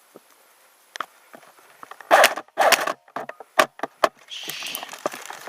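Brush and dry leaves crunching and rustling in two loud bursts, followed by several sharp snaps or clicks and a short stretch of rustling.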